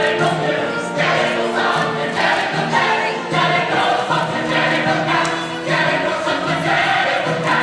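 Choral music: a choir singing held chords that change about once a second.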